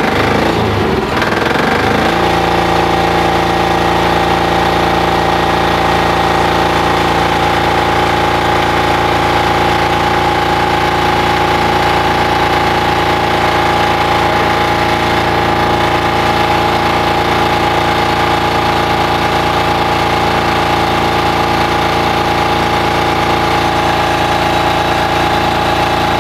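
A spray unit's 4.7 hp electric-start diesel engine starting for the first time: it catches about two seconds in, then runs steadily with its throttle in the start position.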